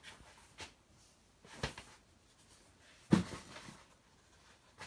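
Handling noise: a few scattered soft knocks and rustles, the loudest about three seconds in.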